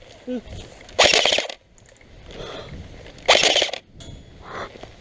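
Two short bursts of rapid full-auto airsoft gun fire: one about a second in, the other just past three seconds, each lasting about half a second.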